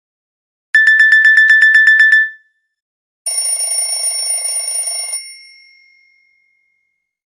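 Nokia X2-02 alert tones. About a second in, a fast run of about a dozen identical high beeps lasting a second and a half, the end of the Clock alert 1 tone. About three seconds in, the Clock alert 2 tone: a buzzing, ringing sound that lasts about two seconds and then rings away over another second.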